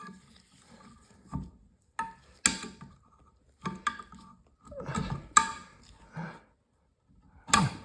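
Metal bench-vise parts knocking and clinking as they are handled during disassembly: about eight separate knocks, several with a short metallic ring.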